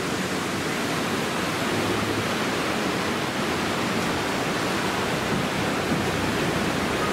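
Fast white-water mountain river rushing over rocks in a stone-walled channel: a steady, even rush of water.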